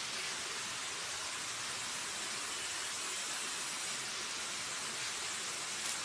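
A steady, even hiss, strongest in the high range, with no distinct knocks or cuts.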